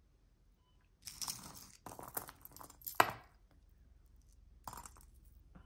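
Costume jewelry being handled and untangled: a run of rustling and clinking, with a sharp click about three seconds in, the loudest sound, and a lighter click near the end.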